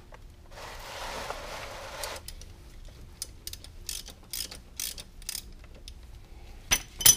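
Hand ratchet clicking in irregular strokes as a socket is worked on a motorcycle's oil filter, with a short rustle about a second in and two sharper metal clicks near the end.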